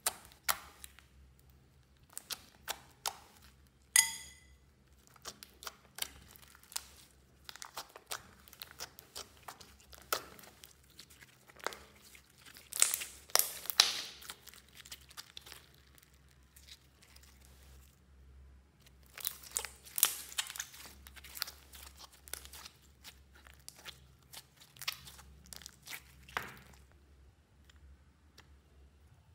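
Hands kneading and squeezing a thick, sticky slime, giving irregular crackles, clicks and wet pops as it is pressed and pulled. The crackling comes thickest in two spells, and there is one short squeaky ring about four seconds in.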